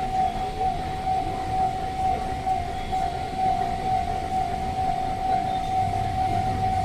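Level crossing warning alarm sounding on one steady high tone. Beneath it runs the low rumble of a train, which grows stronger near the end.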